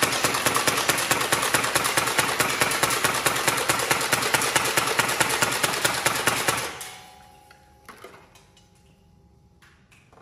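LH M249 electric foam blaster firing on full auto: a fast, even rattle of shots that stops about seven seconds in, followed by a faint click about a second later.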